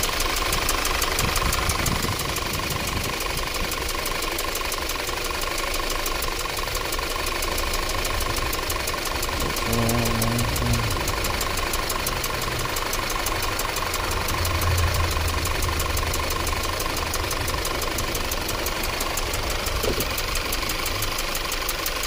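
2013 Audi Q5's 2.0-litre turbocharged four-cylinder idling steadily, running rough with the misfire logged on cylinders 1 and 3.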